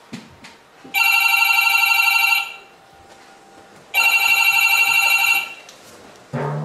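Desk telephone ringing: two rings of about a second and a half each, about three seconds apart. A short rising sound comes near the end.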